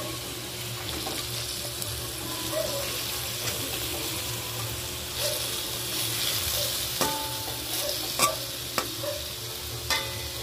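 Chicken pieces sizzling as they sauté in hot oil in a honeycomb-patterned pan, stirred and turned with a spatula that knocks against the pan several times in the second half.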